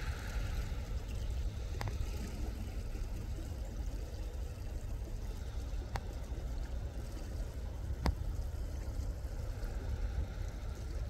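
Steady low rumble of a sailing yacht's inboard engine as it motors with its sails down, over a faint wash of water. A few sharp clicks come about two, six and eight seconds in.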